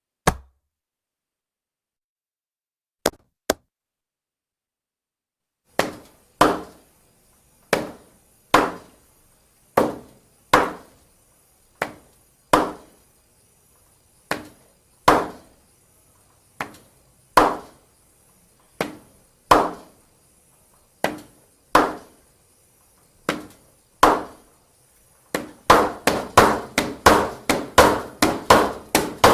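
Old rubber stamp thumping down onto paper: one strike, two light clicks a few seconds later, then repeated stamping about once a second that speeds into a quick run of about four strikes a second near the end.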